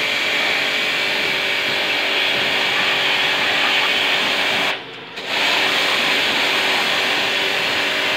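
Pressure washer jet spraying water onto a motorcycle to rinse off soap foam: a steady hiss of spray with the pump motor humming underneath. The spray cuts out briefly, for about half a second, about five seconds in.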